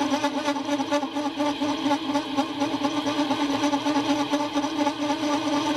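Homemade small CNC lathe turning a 50 mm S45C steel bar at 340 rpm and 0.5 mm depth of cut, with a steady loud, noisy ringing hum and a fast flutter in loudness. The cut vibrates loud and noisy: tool chatter.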